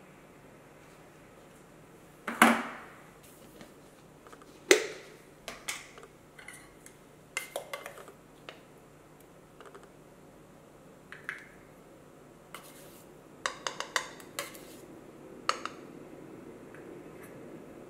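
Metal clatter of a tin of ground coffee being handled: two sharp metallic knocks about two and a half and five seconds in, then lighter clicks, taps and scrapes of a measuring spoon against the tin and the metal portafilter basket as coffee is scooped.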